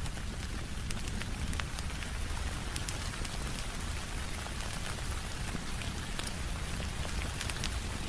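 Steady rain falling, with a low rumble beneath, and a few scattered sharp pops from a crackling wood fire.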